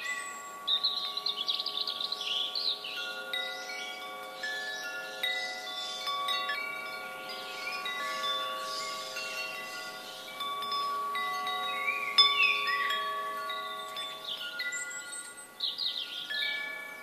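Wind chimes ringing, many overlapping tones struck one after another and left to hang on, with a louder strike about twelve seconds in. Short chirping calls sound over the chimes.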